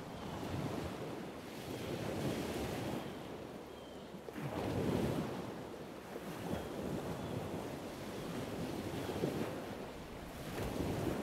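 Waves washing ashore: a rush of surf that swells and fades every couple of seconds.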